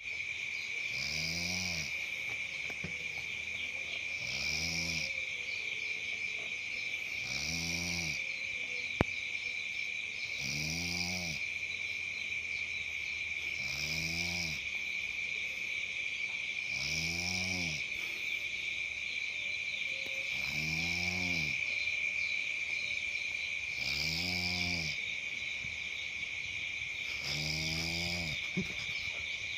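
A sleeping person snoring in an even rhythm, about one snore every three seconds, nine snores in all. Behind it runs a steady, high-pitched chirring of insects such as crickets.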